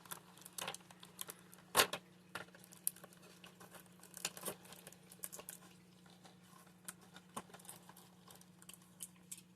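Plastic protective wrapping crinkling and tearing as it is cut and pulled off an action figure: scattered small crackles and clicks, with one sharper click about two seconds in, over a steady low hum.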